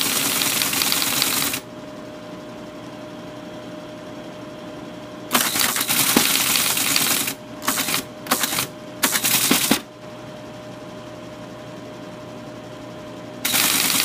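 Teletype Model 33 ASR printing in bursts of rapid type strikes: one burst at the start, a longer one about five seconds in followed by three short ones, and another starting near the end. Between bursts the machine's motor hums steadily.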